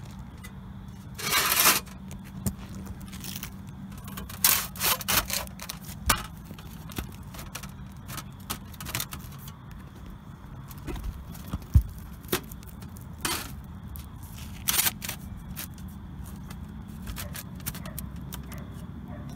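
Sheet-metal vent roof flashing being handled and worked under asphalt shingles: intermittent scrapes, rattles and clicks of metal against the gritty shingles, with a sharp knock near the middle.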